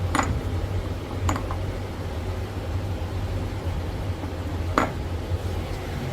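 A car engine running steadily at idle as a low hum, with a few sharp metallic clinks: one near the start, two close together just over a second in, and one nearly five seconds in.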